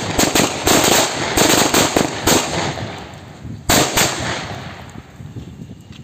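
A string of 28 thick firecrackers going off in a rapid, uneven chain of loud bangs, thinning out after about two and a half seconds, with one last big bang near the four-second mark.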